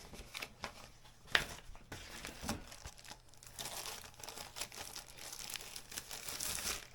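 Paper leaflets and plastic wrapping being handled: crinkling and rustling with light clicks and taps, busiest in the second half.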